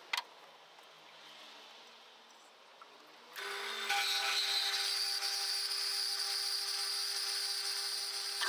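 A few metal clicks as a steel plate is set in the vise of a small horizontal metal-cutting bandsaw. About three seconds in the saw's motor starts, and the bandsaw runs steadily with a constant whine, its blade cutting into the plate.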